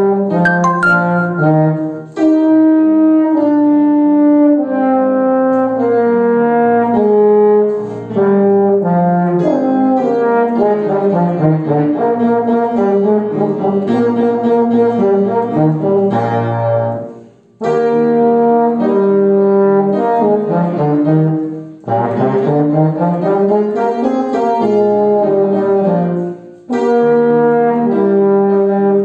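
Upright rotary-valve brass horn playing a melody in a low-middle register, accompanied by an upright piano. The horn pauses briefly between phrases several times.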